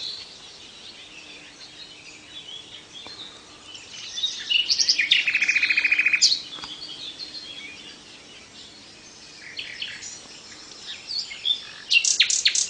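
A srikatan songbird singing a varied, chattering song. It has a loud rapid trill about four to six seconds in and a burst of sharp, high, quickly repeated notes near the end.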